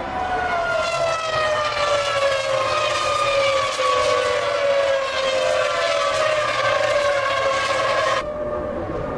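Formula One car's V10 engine running at high revs, its high-pitched note sliding slowly down for about eight seconds; near the end the sound cuts abruptly to another engine note that falls in pitch.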